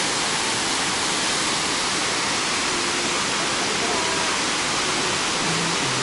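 Steady, even hiss of a waterfall's falling water.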